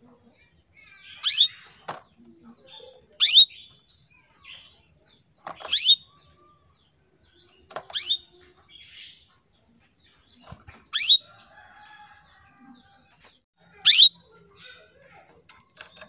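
Female domestic canary calling to a male: six short, sharp, rising calls about two to three seconds apart, with soft twitters in between.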